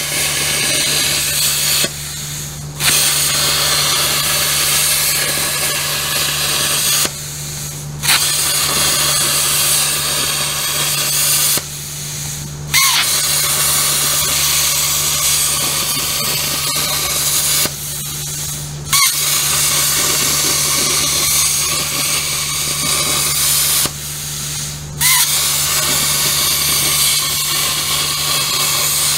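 Plasma cutter cutting narrow slits through 14-gauge sheet steel: a loud, steady hiss in about six runs of several seconds each, broken by short pauses of under a second between cuts. A steady low hum runs underneath.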